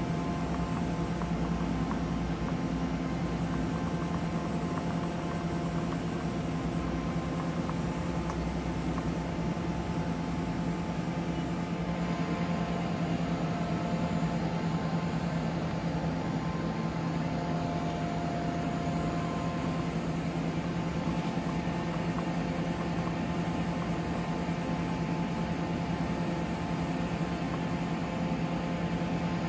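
Steady machine hum with a low drone from a powered-up Mori Seiki SL-154SY CNC lathe, with faint higher whines that come and go.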